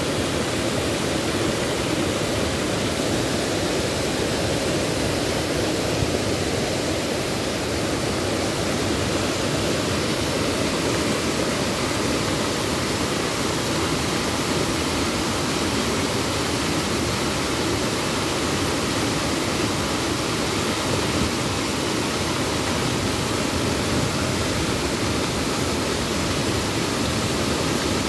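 Muddy river in flood rushing through rapids and pouring over a waterfall: a steady, unbroken rush of water.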